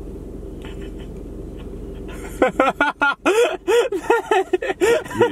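A steady low hum inside a car, then about two and a half seconds in a man breaks into loud laughter, a quick run of repeated 'ha' pulses.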